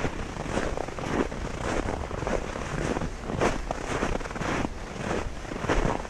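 Footsteps crunching through snow at a steady walking pace, a little under two steps a second.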